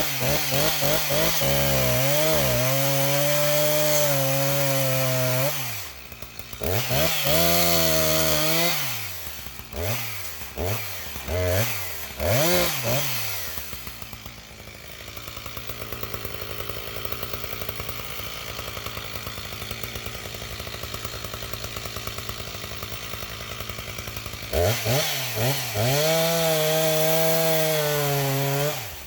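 Husqvarna 359 two-stroke chainsaw run up to full throttle and held for several seconds, revved again, then blipped several times. It drops to a steady idle for about ten seconds, then is run up to full throttle again near the end before coming off the throttle.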